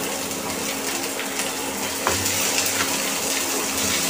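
Chopped greens and onion sizzling in hot oil in a nonstick wok, a steady hiss, with a spatula stirring and a few light scrapes against the pan.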